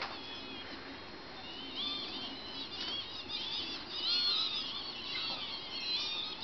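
Many short, arched chirping calls of small birds overlapping in a loose twitter, thickest about four seconds in.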